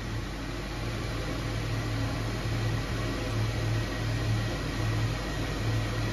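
Steady hum and hiss of a workshop ventilation fan running, with a low drone that swells and dips a few times a second.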